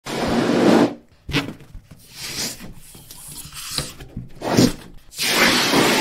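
Balloon sound effect: a run of scratchy, hissy bursts of uneven length, the loudest in the first second and a long one starting about five seconds in.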